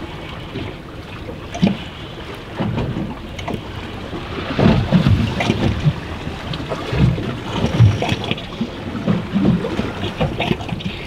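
Wind buffeting the microphone over the wash of choppy sea against a boat's hull, in uneven gusts that are strongest around the middle.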